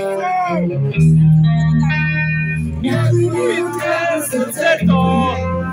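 Live rock band playing: electric guitars and drums, with a woman singing over them, heard from the audience.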